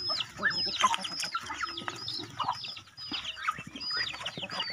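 Backyard chickens calling: a constant string of short, high peeps from chicks, each falling in pitch, over scattered clucking from hens.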